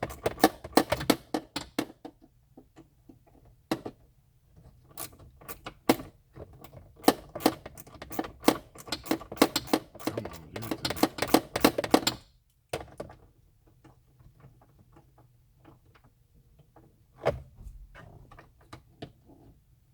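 Small ratchet socket wrench clicking in fast runs as a 7 mm bolt is worked loose: dense runs in the first two seconds and again from about five to twelve seconds in, then only a few scattered clicks.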